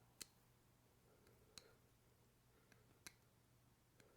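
A few faint sharp clicks, three clearer ones about a second and a half apart, as a fingernail catches on the burr along a knife's freshly ground edge and snaps off it.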